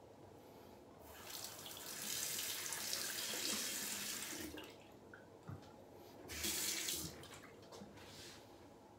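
Tap water running into a bathroom sink for about three and a half seconds, then a second, shorter run of water a couple of seconds later, with a couple of soft knocks in between.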